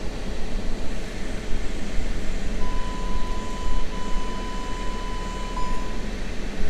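Car's parking-sensor warning sounding a steady high beep for about three seconds, starting a little over two seconds in and broken once briefly, over the car's low engine and cabin hum. The held tone is the warning for an obstacle very close as the car creeps into the bay.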